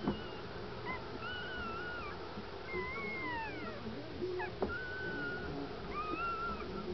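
Newborn miniature dachshund puppy crying: a run of high, thin squeaky cries, each gliding up and down in pitch, about one a second.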